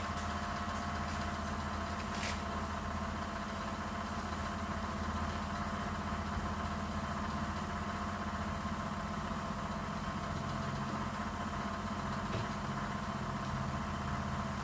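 Steady mechanical hum of a running machine, even and unchanging, with two short sharp snaps, one at the start and one about two seconds in.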